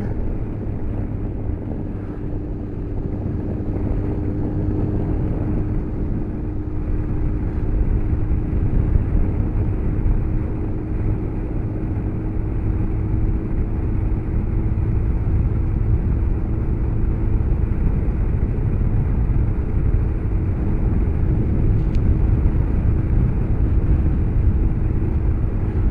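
Motorcycle riding at a steady speed, heard through a helmet-mounted camera: a steady engine note under a constant rumble of wind and road noise.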